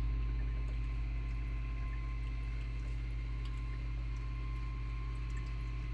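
A steady low hum with a faint, thin, high steady tone above it and no distinct sounds: room tone.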